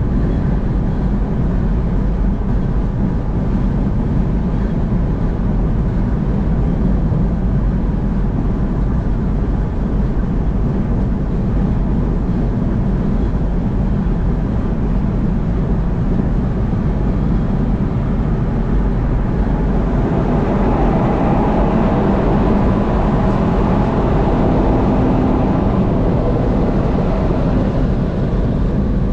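Car driving at highway speed: steady low road and engine rumble, which grows a little brighter with a faint droning tone for several seconds from about two-thirds of the way in.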